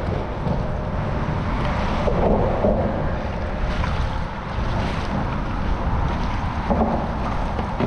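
Wind buffeting the microphone over water sloshing around a kayak, with a few short splashes.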